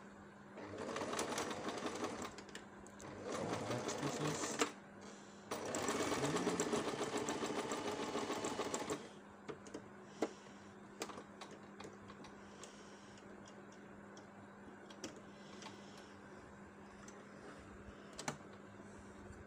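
Electric domestic sewing machine stitching in three short runs, stitching the ends of an elastic band together in a blouse armhole. After that it stops, leaving a few light clicks.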